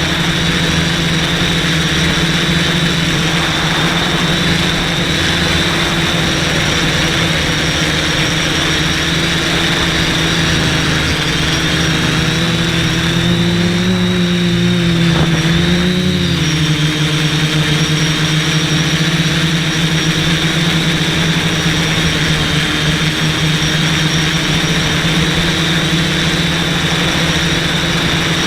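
Quadcopter's brushless motors and propellers droning steadily, with a high whine over a lower hum. About halfway through, the pitch wavers and dips, then settles back as the throttle changes.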